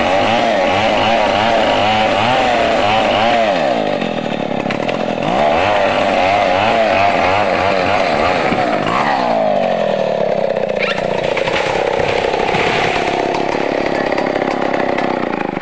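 Stihl chainsaw cutting wood at high revs, its pitch wavering under load and dipping briefly about four seconds in. About nine seconds in the engine falls to a lower, steadier speed.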